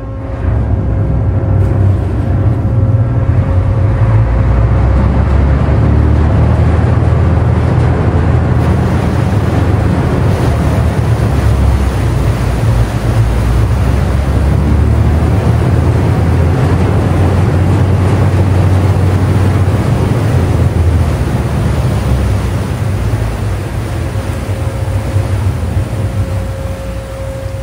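Deep, steady rumble of a gravel carrier's engine and propeller as the ship comes alongside the quay under way, easing off in the last few seconds.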